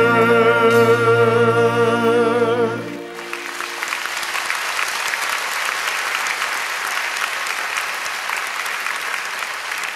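A singer holds the final note of a song with wide vibrato over a sustained band chord, cutting off about three seconds in; a theatre audience then applauds steadily.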